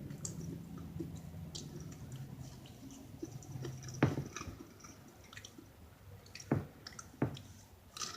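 Close-miked chewing of an egg and hot dog burrito, with wet, squishy mouth sounds and sharp clicks.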